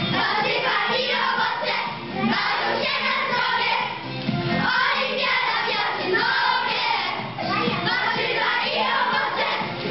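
A group of young children singing a song together over music.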